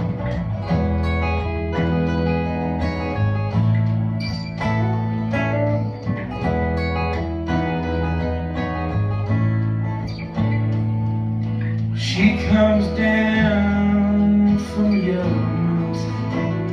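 Live country band music: two acoustic guitars picking over a steady electric bass guitar line, the instrumental intro of a ballad. A louder wavering melody line comes in about twelve seconds in.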